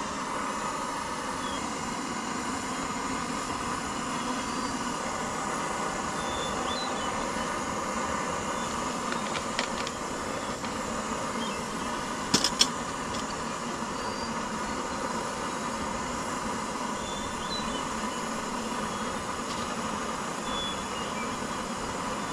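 Gas canister camp stove burning steadily under a pot of water, heating it to the boil. A few sharp clicks sound about ten seconds in and again near twelve seconds.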